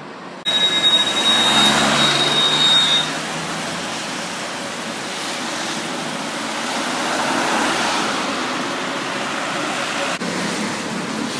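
Cars driving past on a wet city street, mainly tyre hiss on the wet road with engine sound underneath, loudest for the first few seconds. A thin, steady high tone sounds over that opening stretch.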